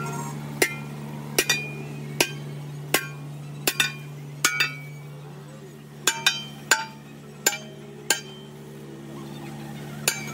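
Hammer blows on a steel wheel rim, about fifteen sharp strikes at an uneven pace, each with a short metallic ring; they stop about two seconds before the end. A steady low hum runs underneath.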